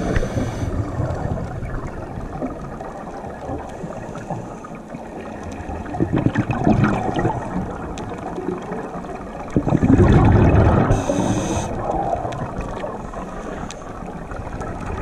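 Scuba regulator breathing underwater: surges of bubbling exhaled air every few seconds, with a brief high hiss of an inhalation about eleven seconds in.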